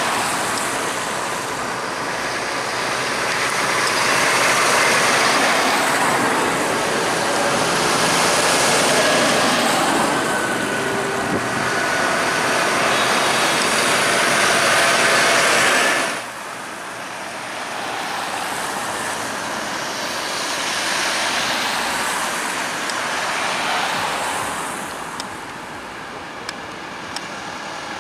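A line of modern farm tractors, Massey Fergusons and a New Holland among them, driving past one after another, their diesel engines and big tyres swelling and fading with each pass. The sound drops suddenly about sixteen seconds in, and the passes after that are quieter.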